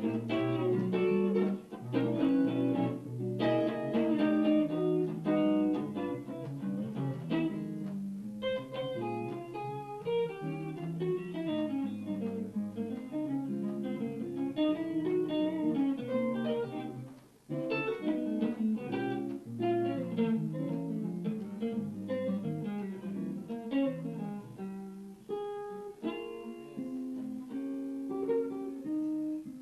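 Archtop guitar playing jazz, mixing chords with single-note runs, with a brief pause about halfway through.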